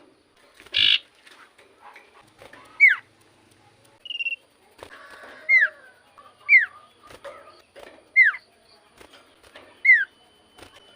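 Common iora (cipoh) singing: short, sharply falling whistled notes repeated every one to two seconds, five in all, with a short harsh rasp about a second in.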